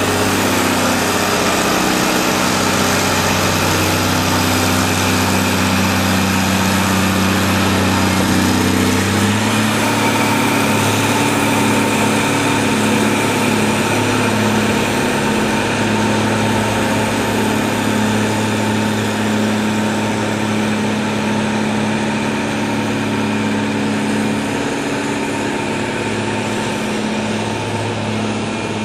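CAT 160M motor grader's diesel engine running steadily as the machine drives and turns. The engine note shifts about nine seconds in and then holds.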